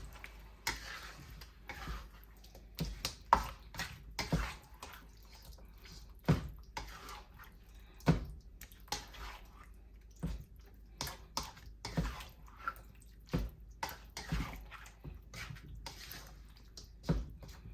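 Quail pieces being stirred in a wet sauce in a pan: irregular knocks and scrapes of the utensil against the pan, with squelching, sloshing sauce between them.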